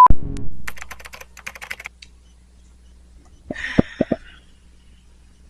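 A thump, then a quick run of light clicks like typing, then three sharp knocks about three and a half seconds in, over a faint low hum.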